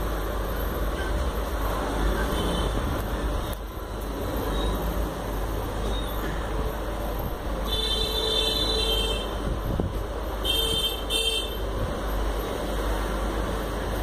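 Steady background street noise with a low hum, and a vehicle horn honking twice: once about eight seconds in for about a second and a half, then again briefly near eleven seconds.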